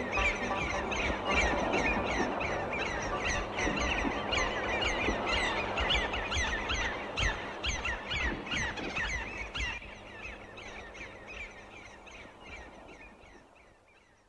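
A flock of seagulls calling, many short downward-sliding squawks overlapping, fading out over the last several seconds.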